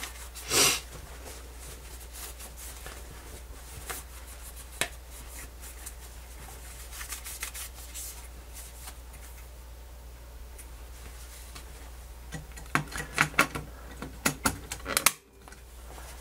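Hand handling of a cassette deck's plastic cassette door and its metal front panel: light rubbing, a short burst of noise just after the start, a few separate clicks, then a quick run of sharp clicks and taps near the end as the door is fitted into place. A steady low hum lies underneath.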